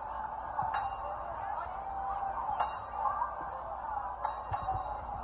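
Background crowd chatter with four sharp metallic clinks that ring briefly, the loudest about halfway through and two close together near the end.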